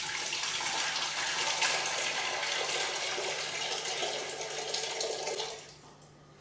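Water pouring from a plastic jug into a large stainless steel stockpot, a steady splashing stream that stops shortly before the end.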